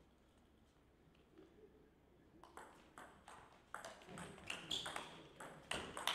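Table tennis rally: a celluloid-type ball hitting rubber bats and the table in a quick series of sharp clicks. It starts about two and a half seconds in after a quiet pause and is loudest near the end.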